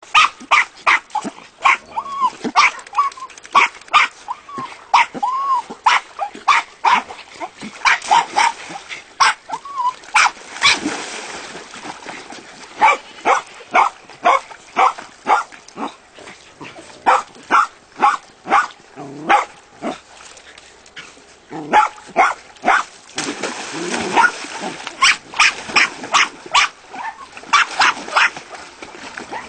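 Jack Russell terriers barking over and over in short, sharp barks, with a few whining yips that rise and fall in the first few seconds.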